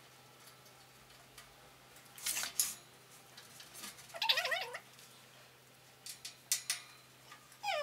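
A cat giving a short, wavering meow about four seconds in. A few rustles and light clicks come from handling the metal cabinet parts.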